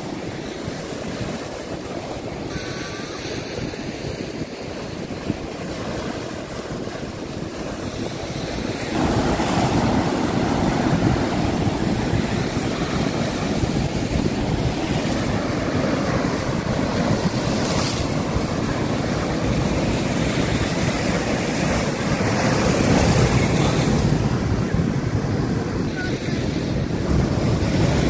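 Stormy sea surf breaking on a rocky breakwater: a continuous rush and wash of water over the rocks, with wind buffeting the microphone. It grows louder about nine seconds in.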